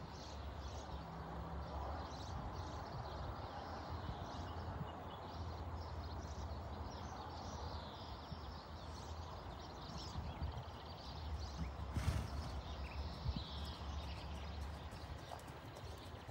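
Hoofbeats of a black pony trotting under a rider on a soft sand-and-grass arena surface, in an irregular stream of dull beats. A single sharp click stands out about twelve seconds in.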